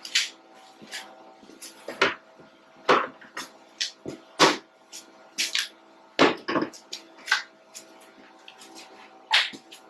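Irregular sharp knocks and clanks, one or two a second, from tools and parts being handled during a roller teardown, over a faint steady hum.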